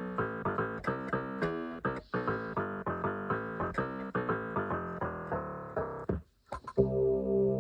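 Casio CA-110 electronic keyboard playing a quick run of notes, about four or five a second, for most of the stretch. After a short break with a couple of clicks, a different tone with a steady low bass part starts near the end.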